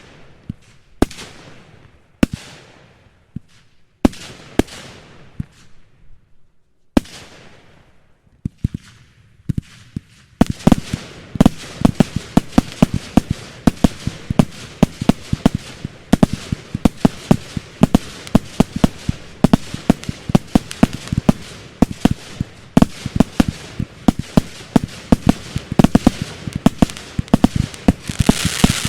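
A fireworks display: single bangs a second or two apart, each trailing off into a crackle, then about ten seconds in a fast, dense barrage of bangs that keeps going.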